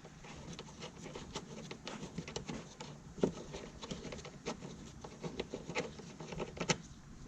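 Irregular light clicks and taps of small parts being handled, with two sharper knocks about three seconds in and near the end.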